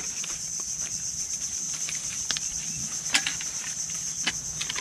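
Steady high-pitched insect chorus, with a few scattered sharp clicks of cooked capiz shells being scraped and handled as the meat is taken out.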